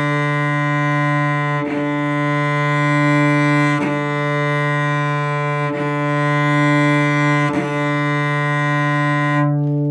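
Cello bowed forte: one sustained low note played in long, even bow strokes, with a bow change about every two seconds. The tone thins out near the end.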